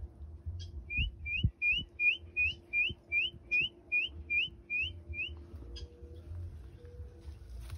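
A whistled call of about a dozen short rising notes, about three a second, that stops a little past halfway.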